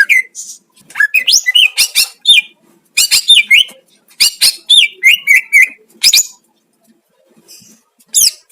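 Green leafbird (cucak ijo) singing: rapid bursts of sharp chirps and whistled notes sliding up and down, in short phrases, with a pause of about two seconds near the end before another phrase.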